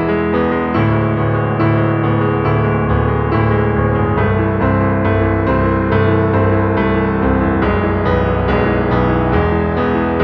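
Background music led by piano or electric piano, a steady run of notes over sustained bass.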